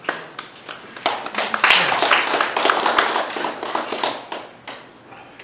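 A small group of people clapping, starting at once, thickest in the middle and dying away after about four and a half seconds.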